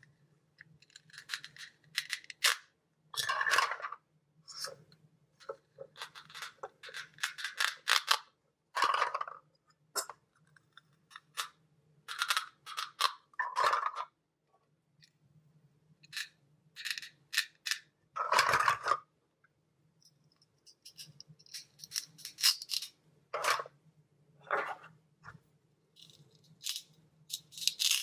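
Toys being handled: irregular clicks, taps and short scrapes, some two dozen brief bursts, over a faint low hum.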